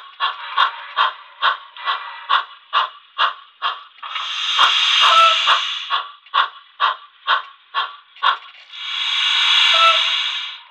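Model steam locomotive's DCC sound decoder playing exhaust chuffs through its small onboard speaker, evenly spaced at a little over two a second, with no cam syncing them to the wheels. Twice the chuffing gives way to a steady steam hiss lasting about two seconds, once in the middle and again near the end.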